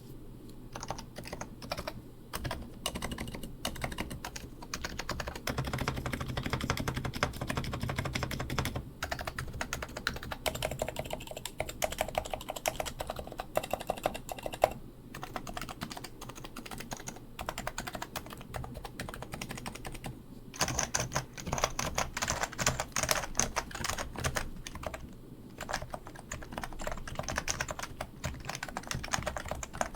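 Topre REALFORCE R4 keyboard with 45 g electrostatic capacitive (Topre) switches being typed on fast, a steady stream of key strokes broken by short pauses every few seconds.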